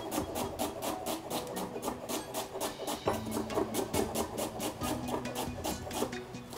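Chef's knife chopping onion on a wooden cutting board, in quick, even strokes of about five a second.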